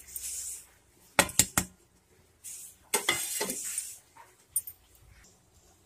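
Dry ground spices being poured from a small steel plate into a brass plate, with a short hiss and a quick run of sharp metal clinks as the plates knock together. A further stretch of rustling and clinks comes about halfway through.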